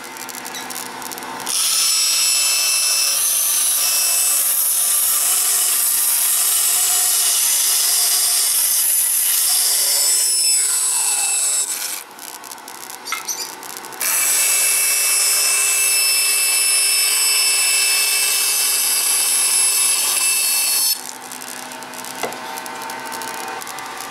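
Narrow-bladed table power saw cutting a curved line through a pine board. The cutting runs in two long stretches with a break of about two seconds midway, and it stops about three seconds before the end, leaving a much quieter sound.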